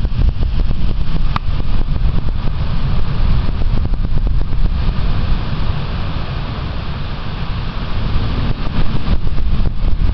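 Loud, steady low rumble with dense crackling close on a trail camera's microphone.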